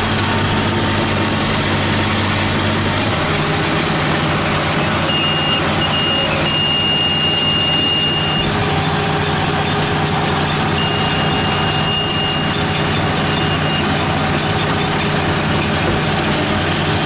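New Holland 8160 tractor's diesel engine running steadily under load while driving a round baler through its PTO, heard from the cab; the engine note drops slightly about three seconds in. A high steady electronic beep sounds twice, for a few seconds each.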